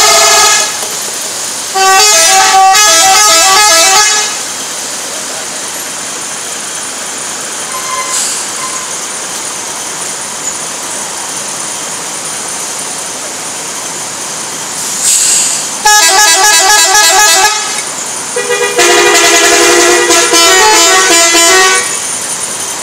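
Indonesian 'telolet' bus horns playing short multi-note tunes in four loud bursts: one ending just under a second in, one from about two to four seconds, and two near the end, around sixteen and nineteen seconds in, each about two to three seconds long. Steady traffic noise fills the gaps between them.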